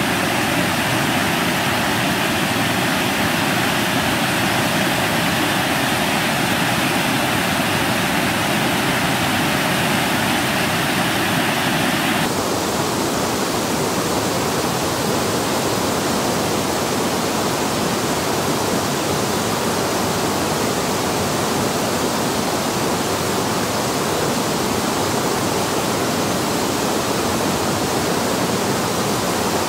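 Water pouring over a low river weir, a steady loud rushing. About twelve seconds in, the sound changes abruptly and becomes duller.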